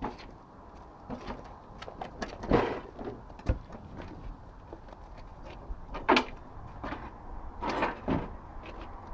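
Scattered knocks and handling noises, with a few short, loud scraping rasps about two and a half, six and eight seconds in.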